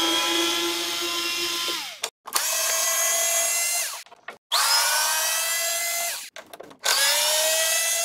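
Small cordless electric screwdriver whirring in four short runs, driving out the Torx 20 screws of the mower's switch cover. Each run lasts about two seconds and ends with the motor winding down in pitch as the trigger is let go.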